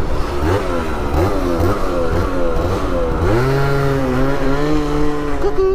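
Two-stroke 50cc scooter engine revving up and down several times, then from about three seconds in held at a steady high pitch.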